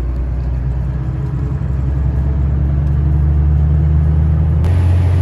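Volvo truck's diesel engine running steadily under way, heard inside the cab, with a low drone that grows gradually louder. About four and a half seconds in, the sound changes abruptly to a deeper, steadier drone with more road hiss.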